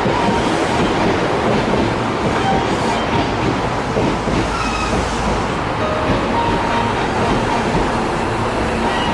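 Hankyu electric train running close by on old jointed standard-length rail: a steady rumble with the wheels clacking over the rail joints, and brief high squeaks here and there.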